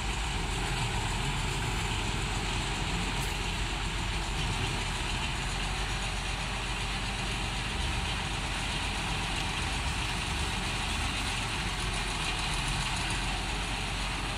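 Crawler crane's engine running steadily at low revs while its hoist holds a long steel section in the air.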